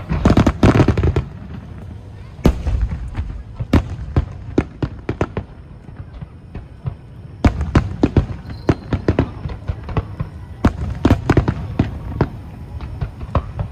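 Aerial fireworks bursting in volleys of sharp bangs and crackles: a dense cluster at the start, scattered reports in the middle, and further rapid runs of bangs later on.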